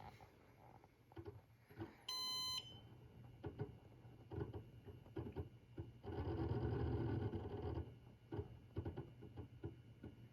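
Toshiba N300 hard drive running with irregular ticking and clicking from its heads seeking, and a louder buzzing, grinding stretch of about two seconds past the middle: the abnormal noise of this drive. A short electronic beep sounds about two seconds in.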